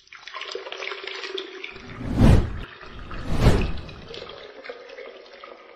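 Beer poured into a glass, fizzing and crackling, with two louder gushes of liquid about two and three and a half seconds in.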